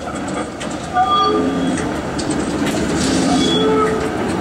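PCC streetcar rolling past over curved track: a steady rumble of steel wheels on rail, with short high wheel squeals about a second in and again near the end.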